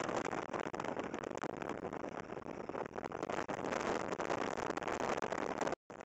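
Steady rushing road and wind noise of a car driving at highway speed, heard from inside the car. It breaks off suddenly near the end.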